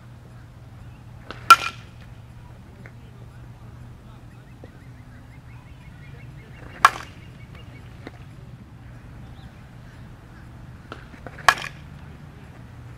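A softball bat hitting tossed softballs: three sharp cracks about five seconds apart, each with a short ring.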